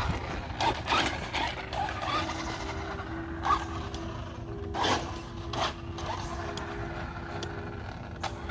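Traxxas Rustler 4x4 VXL radio-controlled truck moving at low speed: scattered clicks and knocks from its drivetrain and suspension, with a faint steady hum through the middle.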